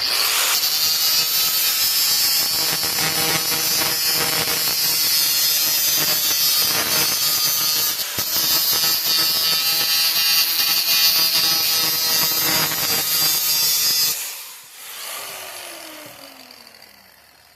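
Angle grinder working against steel pipe, cleaning the galvanized coating off down to shiny metal, running steadily under load. About fourteen seconds in it is let off and the motor winds down with a falling whine.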